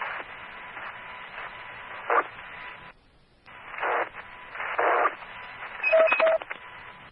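Fire department two-way radio channel heard through a scanner: open-channel hiss, then a squelch tail dropping out about three seconds in. After that come several short noisy key-ups and two quick beeps near the end, as members' radios key up to answer an electronic roll call.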